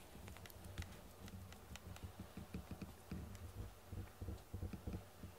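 Cat biting and clawing a plush toy while rolling on a foam mat: irregular soft clicks, scratches and dull thumps.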